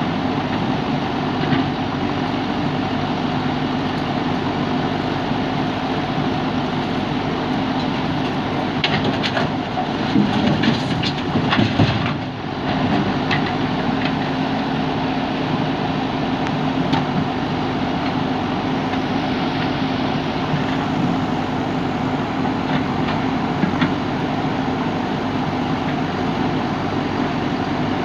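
JCB backhoe loader's diesel engine running steadily. Sharp knocks and clanks come through it, with a louder cluster about ten to twelve seconds in.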